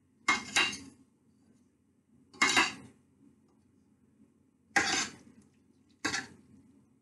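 Metal forks clinking and scraping against a stainless steel pot as fettuccine is lifted out of it, in four short clattering bursts.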